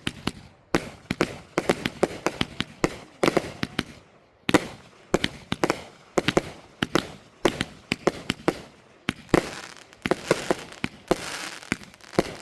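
Consumer fireworks going off in quick, irregular volleys of sharp bangs and cracks, several a second, with short pauses between volleys.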